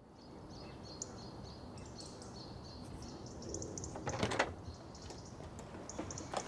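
Small birds chirping over a steady low street background, with a brief rustle about four seconds in and a sharp click near the end.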